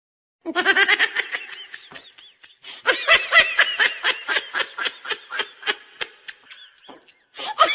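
Laughter sound effect: a person laughing hard in rapid, high-pitched pulses, in two bouts starting about half a second and about three seconds in, the second trailing off into quieter snickers near the end.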